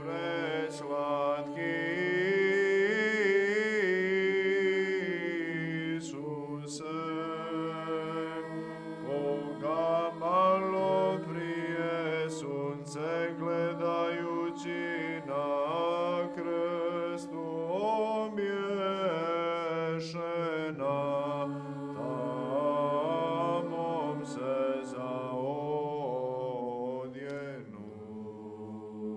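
Unaccompanied Orthodox church chant: a slow melody of long, gliding sung notes over a steady low held note.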